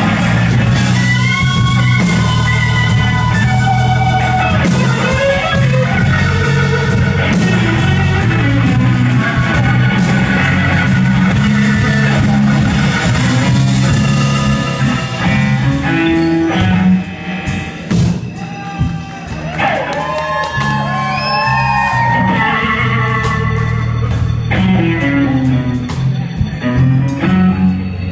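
Live blues band playing a slow blues, with electric guitar, bass, drums and keyboard, the electric guitar taking the lead with bent notes. About two-thirds of the way through the band drops back to quieter, sparse guitar phrases, then builds up again.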